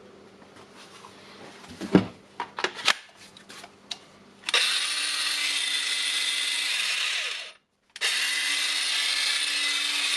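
A few handling clicks and knocks, then the Makita DGA504 18V brushless angle grinder is switched on and runs with a steady high whine. It stops briefly and is started again near the end. After the repair it runs smoothly.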